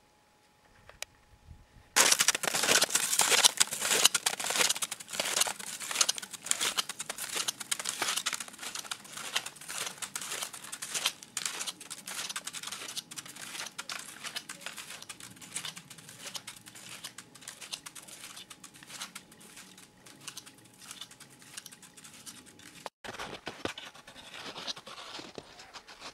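Snowshoe steps crunching in snow, a dense crackle that starts suddenly about two seconds in and is loudest at first. It breaks off briefly near the end, then fainter crunching follows.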